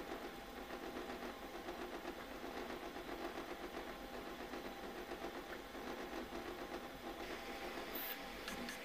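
Artillery Sidewinder X2 3D printer running a print, its stepper motors whirring with rapid changes of direction on the X and Y axes while laying down honeycomb infill; far from loud. A brief hiss near the end.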